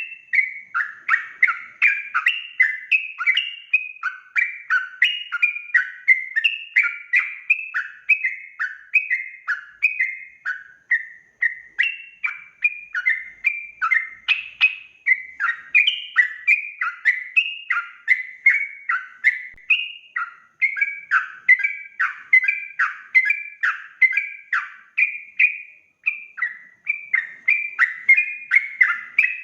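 Yellow-vented bulbul (trucuk) singing an unbroken run of short bubbly phrases, about two a second, many notes sliding down in pitch.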